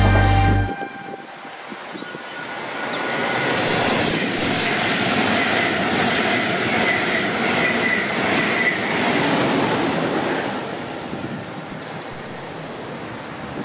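A train passing at high speed: the rush of wheels on rails builds over a couple of seconds, holds loud with a thin high ringing tone above it, then fades away. Music cuts off just under a second in.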